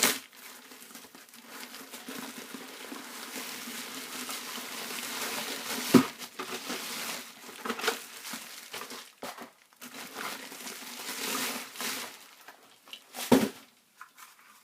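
Plastic packaging crinkling and tearing as it is handled and pulled open, with a few sharp knocks, the loudest about six seconds in and another near the end.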